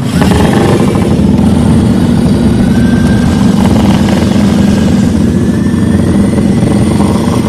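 Racing motorcycle engine running steadily while the bike is warmed up on a paddock stand, its pitch holding level.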